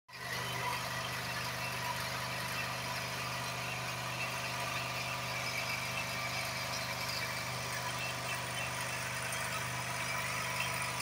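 A steady engine hum: a low, even drone that holds one speed throughout, under a constant hiss.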